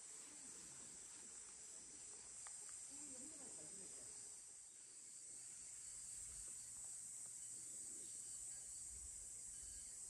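Faint, steady high-pitched chirring of autumn crickets and other insects, with faint voices a few seconds in.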